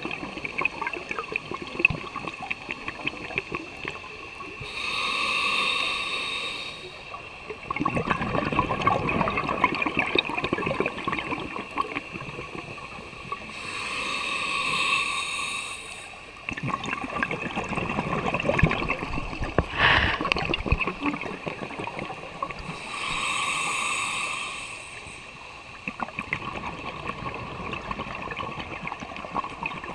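Scuba diver breathing through a regulator: three inhales, each a hiss with a steady whistling tone, about nine seconds apart, each followed by a longer rush of crackling exhaust bubbles. A single sharp click sounds about two-thirds of the way through.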